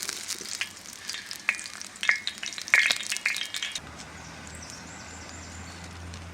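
Sizzling, crackling hiss with scattered sharp clicks and light scrapes. About four seconds in it gives way to a steady low hum.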